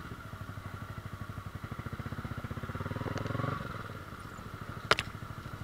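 Yamaha R15 V3's single-cylinder engine pulling the bike slowly along a rough dirt track. It gets louder as the throttle is opened a little past the middle, then drops back. There is a loud sharp clack near the end.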